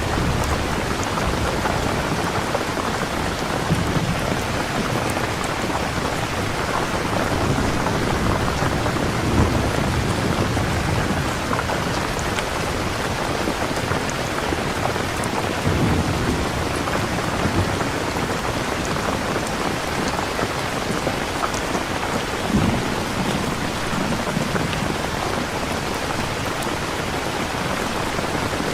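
Steady rain, with a few low rumbles of thunder.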